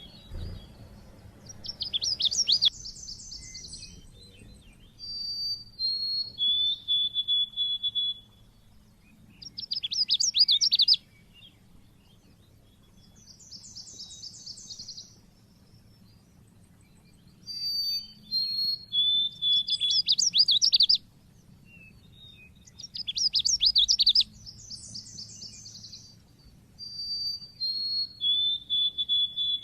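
Pleci (white-eye) singing in the sharp 'cit keres' style: high, thin whistled notes and fast trilled phrases, repeated in bursts with pauses of a few seconds between.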